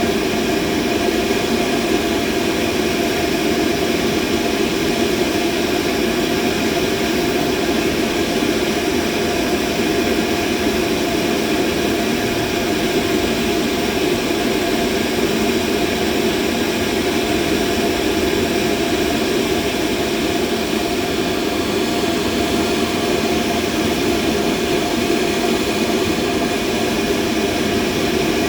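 Steady machine noise: an even, unchanging whirring hum, strongest in the low-middle register, with a few faint constant tones above it, a mid-frequency mechanical masking sound.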